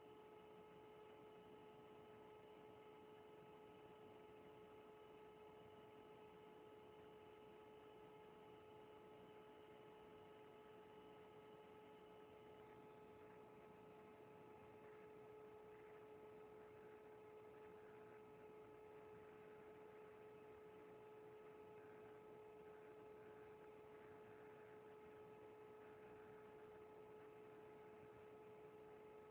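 Near silence with a faint, steady electrical hum of several even tones.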